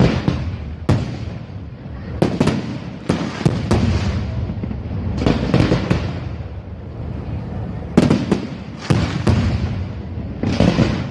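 Fireworks going off: a run of sharp bangs every second or so, several coming in quick clusters, over a continuous low rumble.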